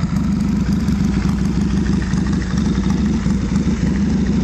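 Triumph 650cc parallel-twin motorcycle engine running steadily at low revs after a kickstart.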